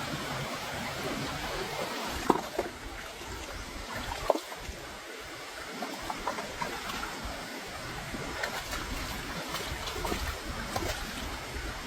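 Steady noise of moving water, like surf on a shore, with two sharp knocks about two and four seconds in and a few fainter clicks later.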